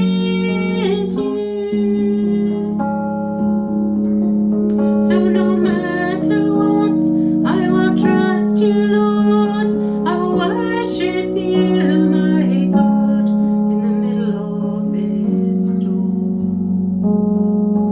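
A woman singing a slow worship song while accompanying herself with sustained chords on a digital piano keyboard.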